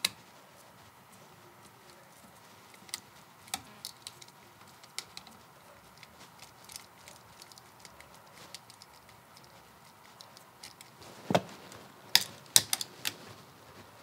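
Screwdriver turning the terminal screws on a duplex electrical receptacle, with faint scattered metallic clicks and ticks from the tool, screws and wires being handled. There are a few louder clicks near the end.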